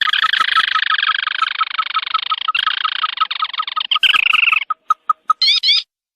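Crake lure call: a steady run of short pips about five a second, with a dense, harsh chattering trill over them for the first four and a half seconds, then a few quick rising notes near the end.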